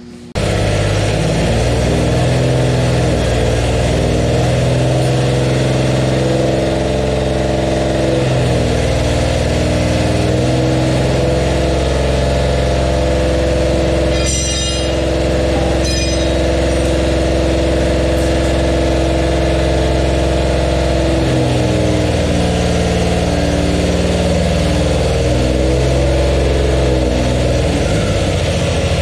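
Rayco RG50 stump grinder's engine running, its speed shifting up and down a few times. Two sharp clicks about halfway through.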